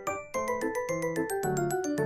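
Background music: a quick melody of short, bright pitched notes over lower bass notes.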